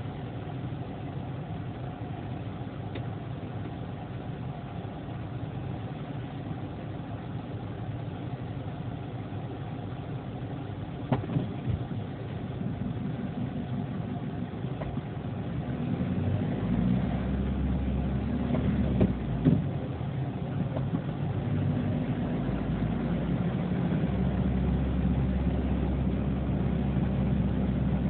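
Vehicle engine and road noise heard inside the cabin through a dashcam microphone: a steady hum that grows louder from about halfway through, with a few sharp clicks.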